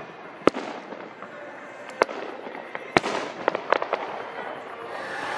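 Aerial fireworks shells bursting: single sharp bangs about half a second, two seconds and three seconds in, followed by a quick cluster of smaller cracks.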